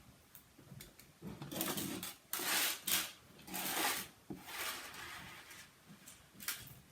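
Slime mixed with fishbowl beads being squished and pressed by hand, giving a run of short squishing, crackling noises about once a second.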